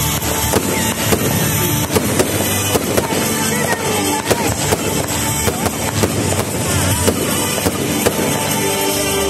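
Aerial fireworks bursting overhead in a rapid, irregular string of bangs and crackles, with music playing underneath.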